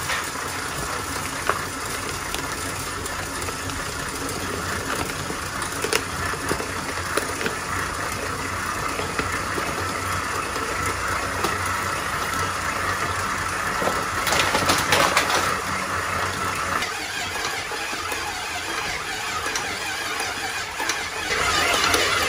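Electric dough mixer running steadily as it kneads a batch of dough, its motor hum growing louder for a couple of seconds about two-thirds of the way in.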